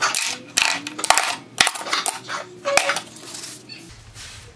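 Rusty metal hand-plane parts dropped into a plastic container, clattering and clinking against each other and the container walls. There are many quick knocks over about three seconds, which die away near the end.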